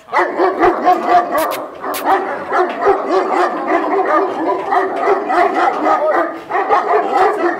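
Pakistani Bully Kutta dogs barking loudly in rapid, overlapping barks that start suddenly, with a brief lull near the end.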